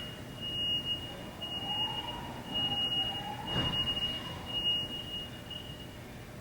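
A single steady high-pitched tone, one pure pitch held for about six seconds before it stops near the end.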